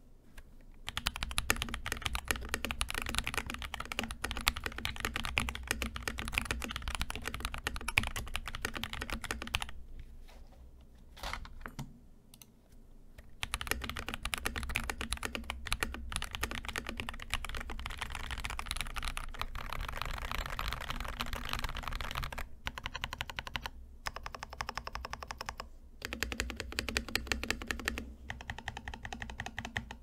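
Fast typing on a mechanical keyboard with stock, unlubricated Akko V3 Cream Yellow linear switches: dense runs of keystrokes. The typing stops for about three seconds around ten seconds in, and breaks off briefly a few more times near the end.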